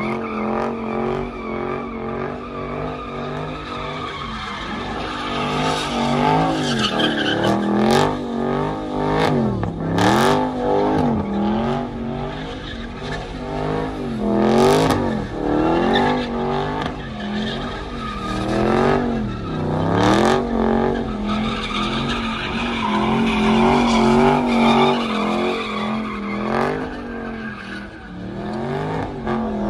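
Dodge Challenger SRT Hellcat Redeye's supercharged V8 revving up and down in repeated waves every second or two while the car does donuts, its rear tyres skidding in a continuous screech. A few sharp cracks stand out along the way.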